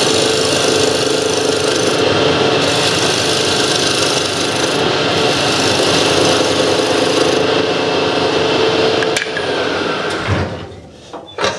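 Homemade wood lathe running with a steady hum while a chisel scrapes and cuts a small spinning wooden plug, throwing off shavings. The cutting and hum die away about ten seconds in, followed by a few sharp knocks.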